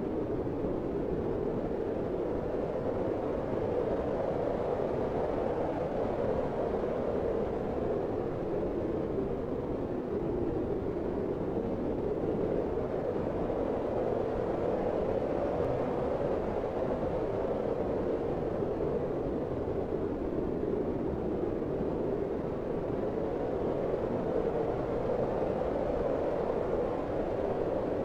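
A steady, even rushing noise with no tones, rhythm or separate events, strongest in the low-middle range.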